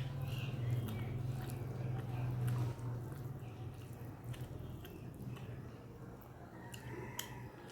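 Close-up chewing and mouth sounds of a person eating rice with fried greens, with small wet clicks. A low steady hum underneath is loudest for the first three seconds or so, then fades.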